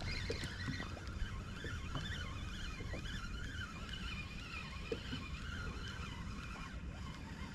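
Spinning reel being cranked to retrieve line, its gears giving a faint whir that wavers in pitch, over low wind rumble on the microphone.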